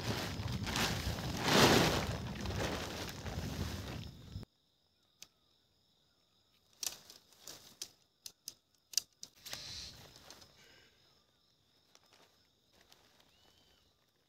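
A tent being pitched. For about four seconds there is loud rustling of tent fabric and gear, which cuts off suddenly. Then come scattered sharp clicks and knocks, like poles and pegs being handled.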